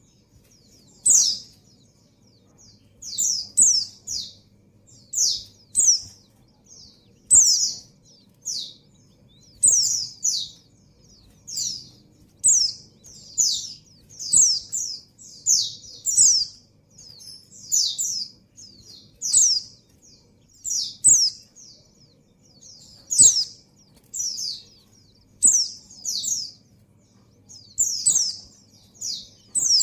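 Female pleci (white-eye, Zosterops) in breeding condition calling for a male: short, high chirps that slide downward, given in quick clusters of two to four and repeated every second or two.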